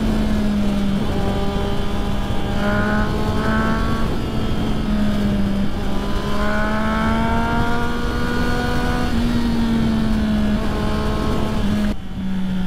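Triumph Street Triple's inline-three engine running at steady cruising speed, its pitch rising and dipping a little with the throttle, under constant wind rush on the helmet microphone. The wind rush cuts out suddenly near the end.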